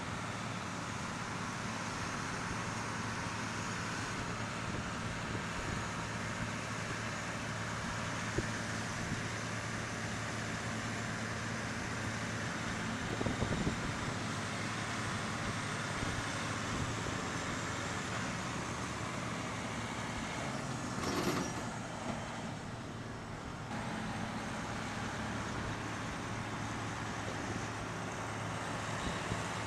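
Diesel engines of John Deere four-wheel-drive articulated tractors running steadily while pulling a stuck, loaded dump truck through a soft field. A brief louder clatter comes about halfway through and again about two-thirds of the way in.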